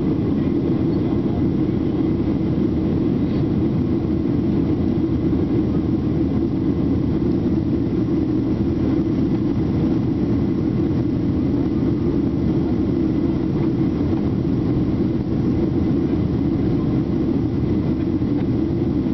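Steady, low rumble of a Boeing 737-800's CFM56-7B jet engines and airflow during the climb after takeoff.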